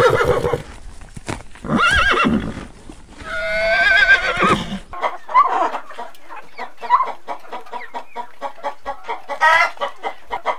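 A horse whinnying, two wavering, shaky calls in the first five seconds. Then a rooster clucking in short quick notes, about three or four a second, with one louder call near the end.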